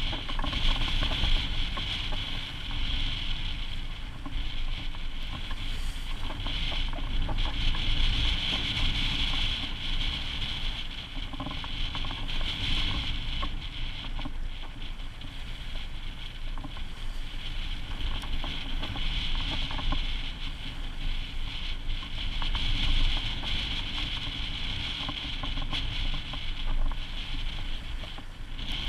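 Steady rush of wind and water around a sailboat under sail in rough open sea, with a low rumble of wind buffeting the microphone and a hiss of spray and wash that swells and eases with the waves.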